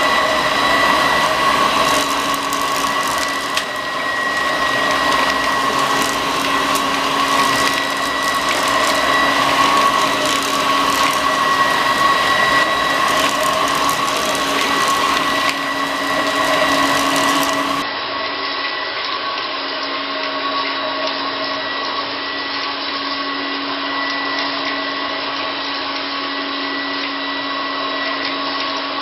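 Homemade bagless cyclonic upright vacuum cleaner built on a Vorwerk, running steadily with a high motor whine over a rushing of air while it is worked over a shag rug. About two-thirds of the way through, the sound turns thinner and steadier.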